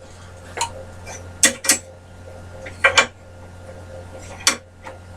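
Aluminium bar stock being handled and set in place on a bandsaw, giving about half a dozen sharp metal clinks and knocks, some in quick pairs.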